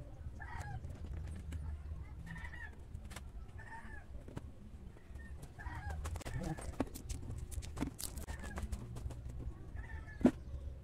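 A chicken clucking over and over, a short call every second or so, with scraping and clicking of hand digging in soil and one sharp knock near the end.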